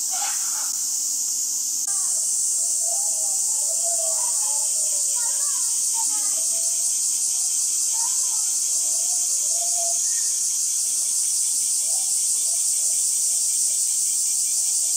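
Steady, high-pitched insect drone, with short scattered chirping glides underneath.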